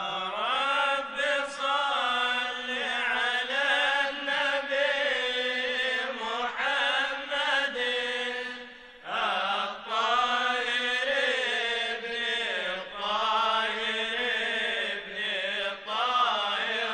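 A male voice singing a long wordless melismatic line in the style of Egyptian Sufi madih, the pitch bending and ornamented, with a brief pause for breath a little past halfway.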